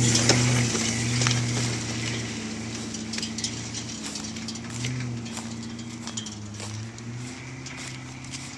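A small engine running steadily, its drone fading as it moves away, with scattered short clicks and knocks.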